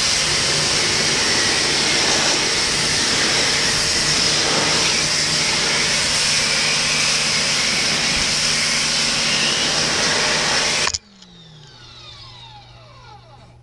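Corded electric pressure washer running and spraying: a steady motor hum under the hiss of the water jet. It cuts off suddenly about eleven seconds in, leaving a much fainter low hum with a few falling tones.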